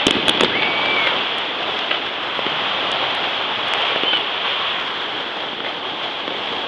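Dense, continuous crackle of many New Year fireworks and firecrackers going off at once, with several sharper cracks in the first half second and scattered single pops after.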